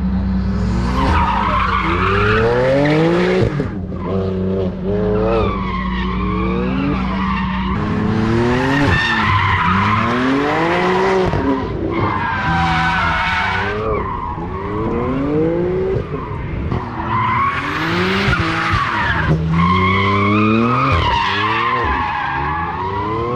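Drift car's engine revving hard, its pitch climbing and dropping over and over as it slides through a corner, with the tyres squealing throughout. For the first several seconds an engine note is also held steady.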